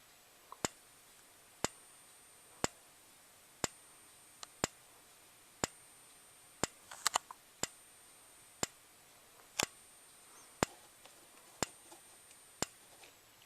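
Gentex GEC3-24WR (Commander 3) strobe flashing in strobe-only mode at 15 candela, giving a faint, sharp tick with each flash about once a second, over a faint steady high whine that stops near the end.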